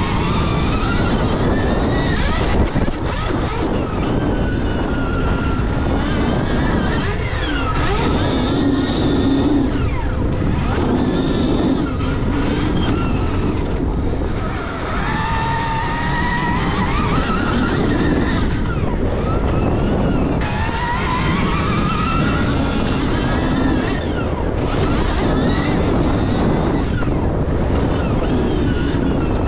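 Stark VARG electric motocross bike being ridden hard: its motor whine rises and falls again and again with throttle and braking, over heavy wind and ride noise on a helmet-chin camera.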